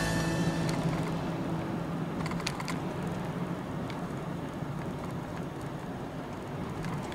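Steady road and engine noise inside a moving car's cabin, with a few sharp clicks about two and a half seconds in and again about four seconds in.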